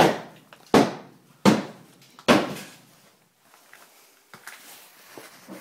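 Four hard demolition blows, one about every three-quarters of a second, each ringing on briefly before fading, followed by a few smaller knocks.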